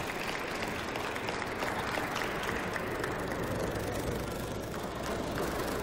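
Spectators applauding after a table tennis point, the clapping thinning out about halfway through.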